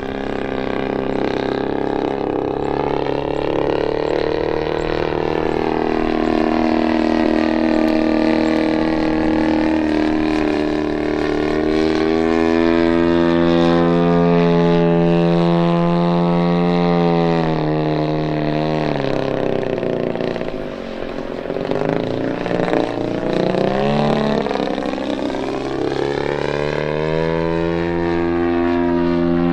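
Giant-scale RC aerobatic plane's 120cc DA petrol engine and propeller in flight. The note glides up and down continuously, drops low for a few seconds about twenty seconds in, then climbs back.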